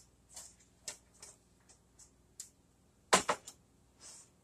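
Metal square cake pans clattering as they are lifted on a tray and set down, a scatter of light clicks and knocks with the loudest double knock about three seconds in.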